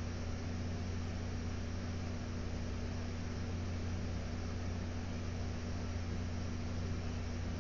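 Steady low electrical hum under a constant hiss, with no other distinct sound.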